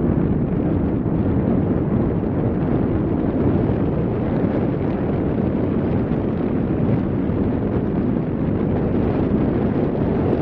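Steady wind rumble on the microphone aboard a CityCat catamaran ferry under way, with the ferry's running noise underneath.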